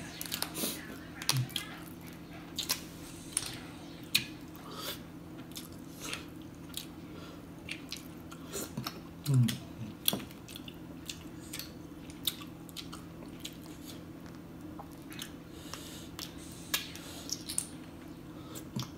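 Close-up eating sounds of sun-dried freshwater clams: many sharp clicks and cracks as the shells are prised apart by hand, with chewing and lip smacks. A steady low hum runs underneath, and a short low hum from the eater comes about nine and a half seconds in, the loudest sound.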